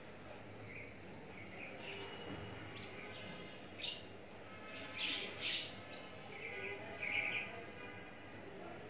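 Small birds chirping in short scattered calls over the faint steady sizzle of cornflour-coated chicken pieces frying in oil in a pan.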